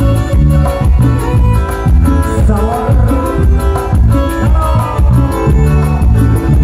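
Live band playing amplified Latin dance music, with guitar and percussion over a strong, steady bass line.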